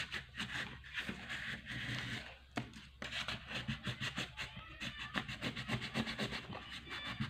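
A hand rubbing quickly back and forth over coloured-in paper, blending the colour stripes: a dry, scratchy rub at about five or six strokes a second, with a short pause about two and a half seconds in.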